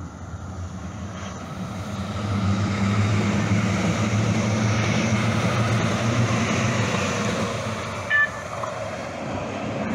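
CTrain light-rail train running into the station and passing close alongside the platform, its running noise and low motor hum rising as it nears and then easing as it slows. A brief high tone sounds about eight seconds in.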